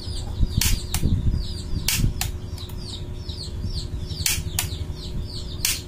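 Kitchen-lighter piezo igniter clicked repeatedly, sending sparks across bare wire tips for a PVC air gun. It makes sharp snaps every second or two, often two in quick succession. Birds chirp throughout with short, high, falling calls.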